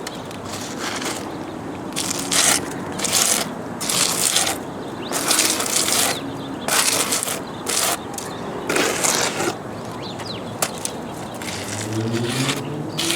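Repeated gritty scrapes of wet concrete mix being scooped and worked against stone and rock, coming irregularly about once a second.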